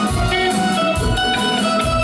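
Live band music: a drum kit keeping a steady beat under electric guitar and keyboard.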